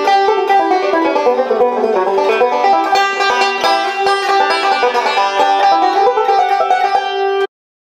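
Resonator banjo picked fast in a bluegrass roll, a rapid stream of bright plucked notes; the playing cuts off suddenly near the end.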